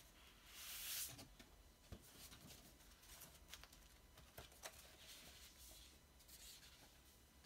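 Faint rustling and sliding of a paper record sleeve and cardboard album jacket being handled and slid together, with a few light taps and clicks. The loudest swish comes about a second in.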